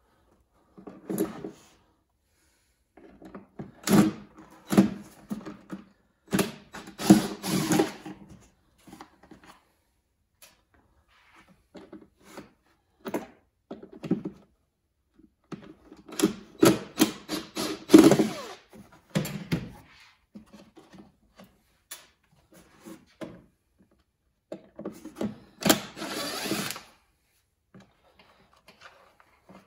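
A cordless drill-driver runs in repeated short bursts, each a second or two long, backing screws out of a shop vac's housing to take it apart.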